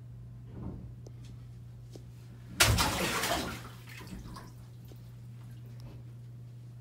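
A sudden splash in a filled bathtub about two and a half seconds in, the water noise dying away over about a second, over a steady low hum.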